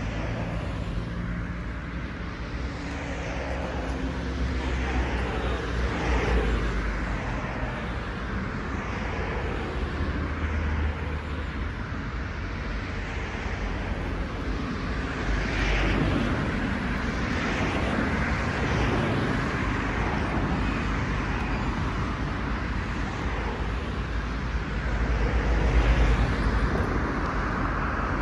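City street traffic: vehicles passing one after another over a steady low traffic rumble, with louder passes about a quarter of the way in, just past halfway and near the end.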